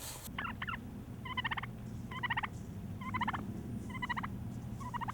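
Turkey gobbling, six quick warbling gobbles about a second apart, over a low steady hum.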